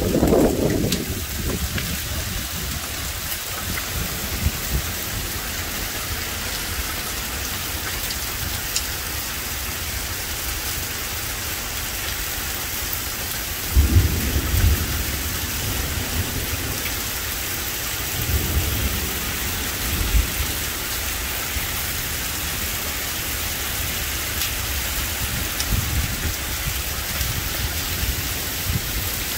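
Heavy rain pouring down steadily, with thunder. A rumble fades out in the first second, a sudden thunderclap about fourteen seconds in rolls on for a second or two, and weaker rumbles follow a few seconds later.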